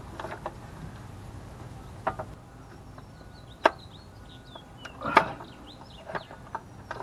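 Sharp clicks and knocks of hands working plastic and metal parts on a Chevy 5.3 Vortec engine's intake. There are a handful of separate hits, the loudest near the middle and a small cluster a little later, with faint bird chirps in the background.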